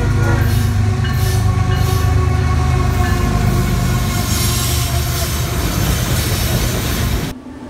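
CSX freight train's diesel locomotives and cars passing close at track speed: a loud, heavy engine rumble with wheels clattering and hissing on the rails. The sound cuts off abruptly near the end.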